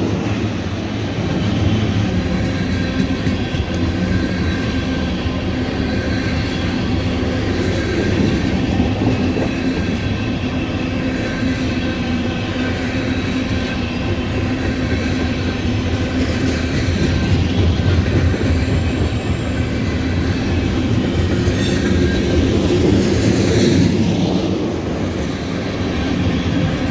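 Freight cars of a loaded tank-car train rolling past close by: a steady rumble of steel wheels on rail, with thin steady high-pitched wheel squeal running through it.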